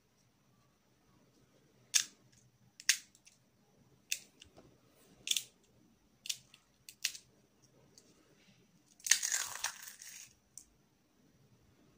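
Crisp fried fuska (pani puri) shells cracking between the fingers in a series of about six sharp snaps. About nine seconds in comes a longer crunch as a shell is crushed in a fist.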